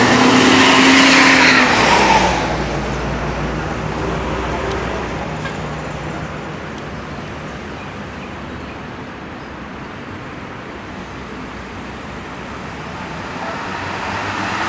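A road vehicle's engine passing close by in the first two seconds, its pitch dropping slightly as it goes, then fading into steady traffic noise that swells again near the end as more traffic approaches.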